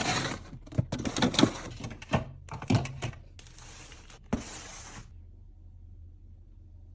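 Snacks and drinks being handled and set into a mini fridge: a quick run of clicks, knocks and crinkly packaging rustles that stops about five seconds in, leaving a faint low hum.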